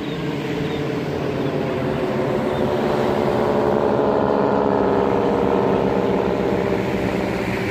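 Engine drone of several propeller airplanes flying over together, a steady pitched hum that swells to its loudest around the middle and then fades as they pass.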